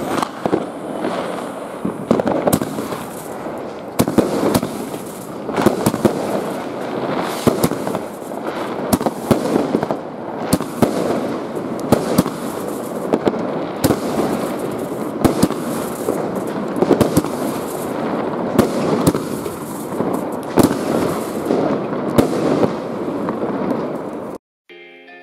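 Volksfeuerwerk Bär & Bock multi-shot firework firing shot after shot: a steady run of launch bangs and aerial bursts with a haze of crackle between them. The firing stops abruptly near the end.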